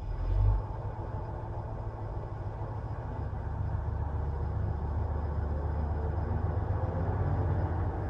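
KrAZ six-wheel-drive truck's diesel engine running under load as it tows a trolleybus through deep snow: a low, steady rumble that grows louder over the last few seconds. A single thump about half a second in.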